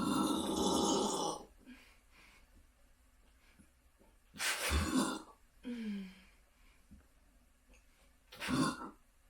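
A person burping loudly several times: one long burp of about a second and a half at the start, a shorter one about four and a half seconds in, and a brief one near the end.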